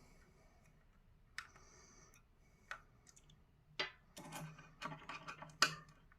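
Plastic parts of a PS5 controller clicking and knocking as it is taken apart by hand: four or five sharp clicks with a little rattling between them, louder in the second half.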